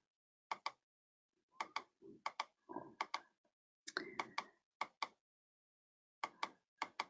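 Faint, irregular clicks of typing on a computer keyboard, in short clusters of a few keystrokes separated by pauses.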